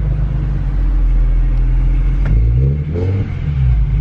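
Single-turbo BMW N54 straight-six running through a VRSF 3.5-inch street exhaust with its muffler, a steady low drone on the move. Around two-thirds of the way in the pitch rises as the engine revs up and briefly dips. The tone is muffled, quieter than the straight-piped race version.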